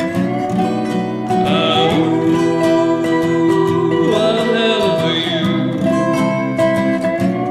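Acoustic rock song: a male voice sings long, howled 'owooo' notes that glide up and down in pitch, over a strummed acoustic guitar and a resonator guitar.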